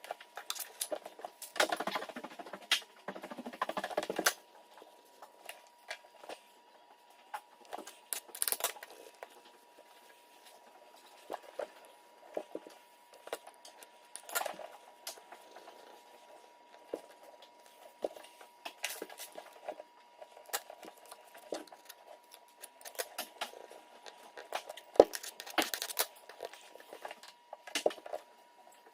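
Irregular small scratching, tapping and clicking of close-up hand work on a hardwood floor repair, with denser bursts of scratching near the start and a sharp tap a little before the end, over a faint steady high hum.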